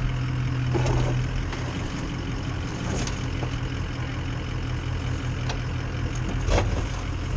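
Ford F-250's Power Stroke V8 turbo-diesel engine running at low speed in a steady low drone, with scattered knocks and clicks, one sharper knock about six and a half seconds in.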